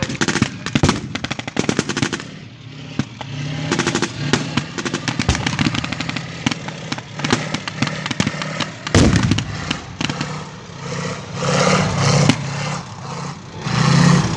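Blank gunfire in a WWII battle re-enactment: rapid machine-gun bursts mixed with single rifle shots, then one heavy boom about nine seconds in.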